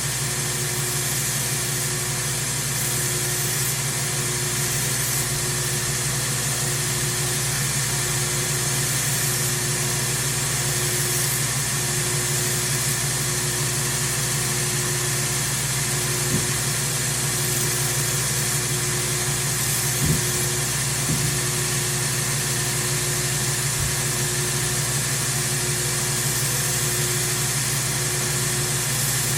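Power grinder running steadily with a constant hum and hiss while a Buck knife's broken tip is ground back to a point from the spine. A few light knocks sound in the second half.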